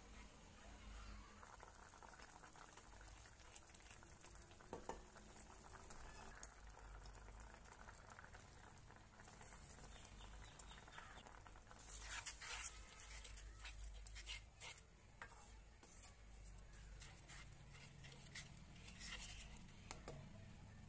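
Faint stirring of grated carrot in a nonstick pan with a wooden spatula: scattered scraping clicks over light sizzling. From about halfway through, the scraping and hiss grow louder and more frequent as sugar is poured in and stirred.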